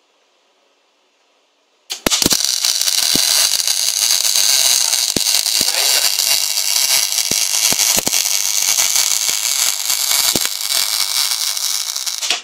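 MAG welding arc of a welder-based metal 3D printer, striking after about two seconds of near silence and crackling steadily with sharp pops as it deposits weld metal, then cutting off suddenly at the end.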